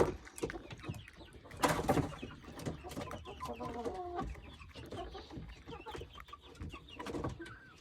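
Backyard hens clucking and making short calls as they settle on the roost for the night, with one louder call about two seconds in.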